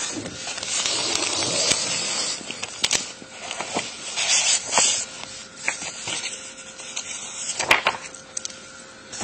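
Paper rustling and handling noise with scattered sharp clicks as pens and a statement form are handed across a table, heard through a police body camera's microphone.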